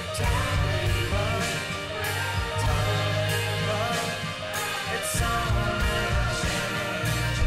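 A rock song playing, with a steady drum beat, bass and a singing voice.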